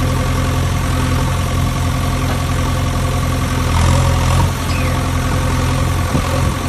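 Heavy vehicle engine idling steadily, a low even rumble. It is an engine sound effect going with toy loaders driving on sand.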